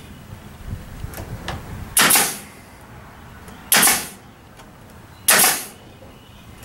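Pneumatic brad nailer firing three times into wooden framing, roughly a second and a half apart, each shot a sharp snap with a brief hiss after it.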